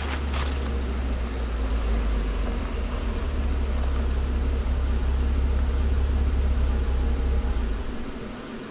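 Deep, steady low rumble that swells a little and dies away near the end, with a couple of brief clicks right at the start.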